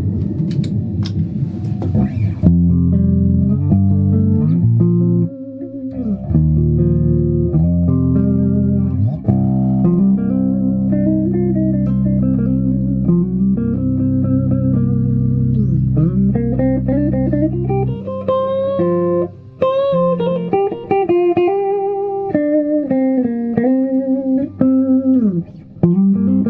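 LTD Phoenix 200DX electric guitar played plugged in: a couple of seconds of noise, then held low chords for about fifteen seconds, then a higher lead line with notes bent up and down.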